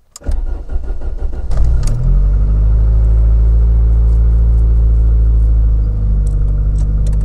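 Car engine cold-started on a 42% ethanol–gasoline blend with coolant at about 12 °C: the starter cranks briefly, the engine catches about two seconds in and runs at a steady fast idle, easing slightly lower near the end. It fires up cleanly on the cold start.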